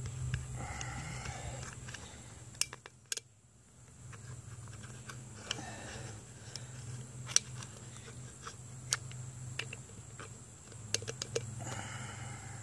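Scattered light clicks and knocks of a 6.7 Cummins plastic fuel filter housing being handled and turned over in the hands, over a faint steady low hum.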